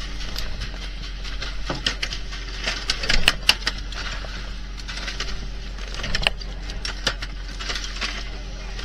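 Irregular sharp metallic clicks and knocks, busiest about three seconds in and again past six seconds, over the steady hum of a fishing boat's engine, as yellowtail are worked through a spring-loaded steel fish-killing machine on deck.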